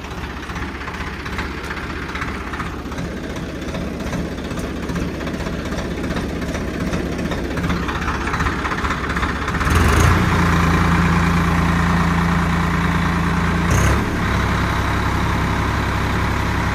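Swaraj 855 4x4 tractor's three-cylinder diesel engine running at low speed, then throttled up about ten seconds in to a louder, steady higher-rpm run for pulling the cultivator. There is a brief knock about four seconds after the throttle rises.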